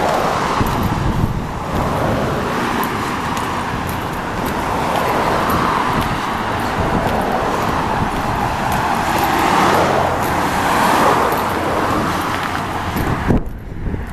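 Road traffic: cars driving along a two-lane road, with tyre and engine noise swelling twice as vehicles approach and pass. The sound dips briefly about a second before the end.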